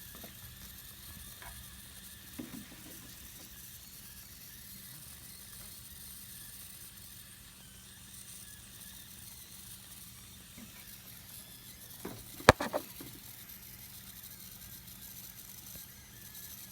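Engine running at a steady idle, faint, with a hiss, from an exhaust that is leaking. A single sharp click stands out about twelve seconds in.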